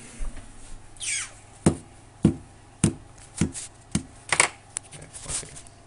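A short falling squeak, then a run of sharp knocks, roughly two a second, starting about a second and a half in.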